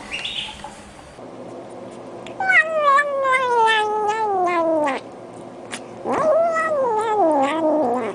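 Kitten giving two long, wavering calls as it eats, each falling in pitch: one about two and a half seconds in, lasting over two seconds, and a second one about six seconds in.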